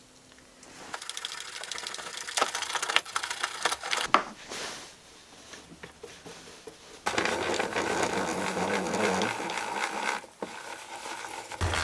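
Blade-height adjustment mechanism of a DeWalt table saw being cranked: a rhythmic mechanical grinding and squeaking. It starts about a second in and turns into a dense, steady run from about seven seconds in, with a short break near the end.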